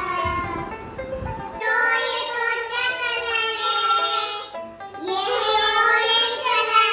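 Music with a singing voice holding long, wavering notes in several phrases, with short gaps between them.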